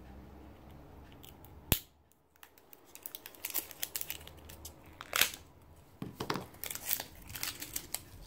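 A roll of washi tape being worked open by hand: fingernails picking at its end and peeling the tape off the roll, with irregular crackles and clicks. A single sharp click comes about a second and a half in.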